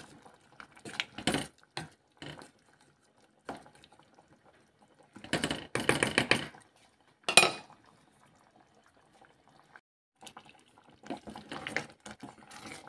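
Wooden spoon stirring a chunky chicken, potato and carrot curry in a stainless steel saucepan, knocking and scraping against the pot with liquid sloshing, while instant curry roux blocks dissolve into the broth. The stirring comes in short bursts with quiet pauses, with one sharp knock on the pot about seven seconds in.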